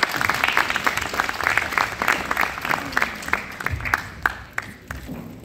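Audience applauding, many hands clapping densely, thinning out and fading near the end.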